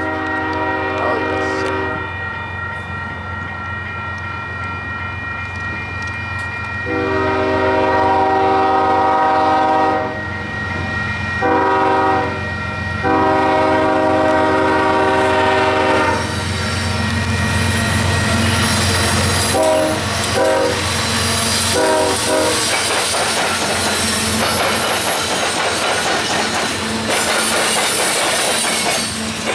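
Union Pacific diesel locomotive horn blowing the grade-crossing pattern: long, long, short, long, with the last blast ending about halfway through, then two brief toots. Under it a grade-crossing bell rings and the heavy train rumbles. In the second half the loaded coal hoppers roll past close by, with steady wheel clatter.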